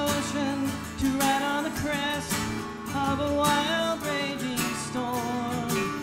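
A man sings with a strummed twelve-string acoustic guitar, a folk-country song with a steady strumming rhythm under the vocal melody.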